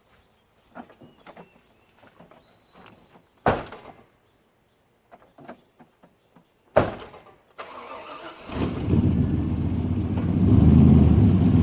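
Light handling noises and two sharp thumps, then the 1995 GMC K1500's 350 small-block Chevy V8 with throttle-body injection starts about eight and a half seconds in and runs, swelling to a brief rev near the end before settling.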